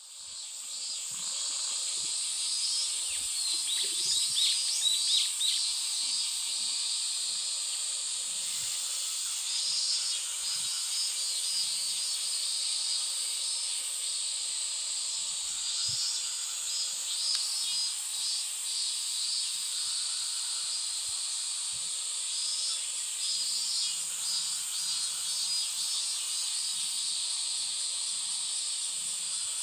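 Steady high-pitched insect drone, with bursts of rapid chirping every few seconds, the loudest about four to five seconds in.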